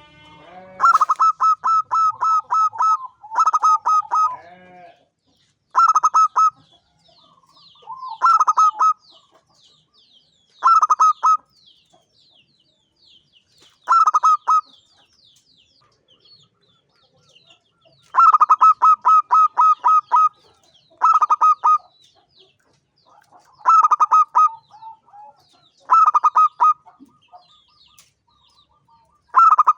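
Zebra dove (perkutut) cooing: about ten phrases of rapid, staccato notes, each phrase under a second to two seconds long, separated by pauses of one to three seconds.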